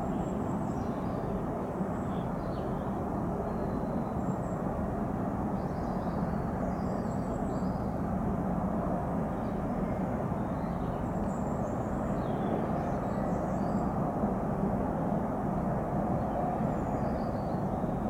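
Steady outdoor background rumble with small birds chirping now and then.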